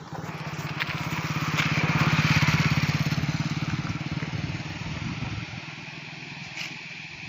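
A motor vehicle's engine with a fast pulsing beat grows louder over the first two to three seconds, then fades over the next few as it passes by.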